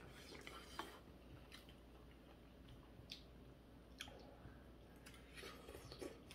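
Faint eating sounds at a table: quiet chewing and a handful of light clicks of utensils against dishes.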